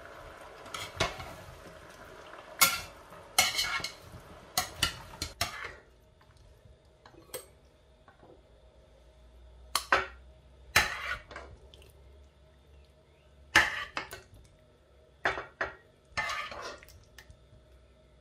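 Cooking utensils clinking and scraping against a nonstick pan and a glass bowl as cooked vegetables are stirred and spooned out, in irregular sharp knocks. A soft hiss runs under the first five seconds or so.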